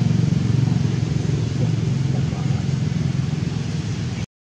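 Steady low rumble with no distinct events, cutting out abruptly near the end.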